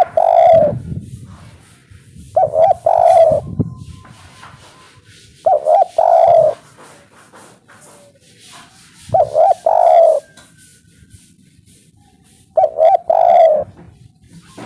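Spotted dove cooing its three-note "kuk 3" call: short clipped notes then a longer drawn-out note, repeated about every three seconds, five phrases in all.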